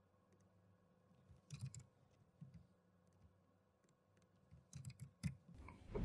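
Faint, scattered computer mouse and keyboard clicks as cells are merged and text is typed into a spreadsheet. Near the end, a swelling whoosh transition sound effect rises and becomes the loudest sound.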